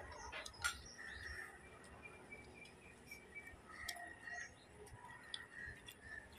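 Faint birds chirping, with a short run of repeated high chirps a couple of seconds in. Scattered soft clicks come from eating by hand off banana leaves.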